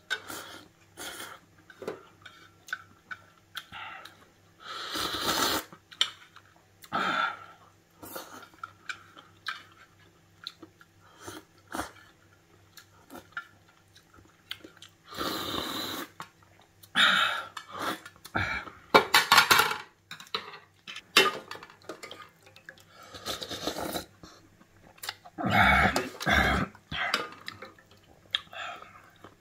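Close-up eating sounds: ramen noodles slurped in repeated short bursts, with chewing in between and small clinks of chopsticks and a metal spoon against a thin aluminium pot and lid.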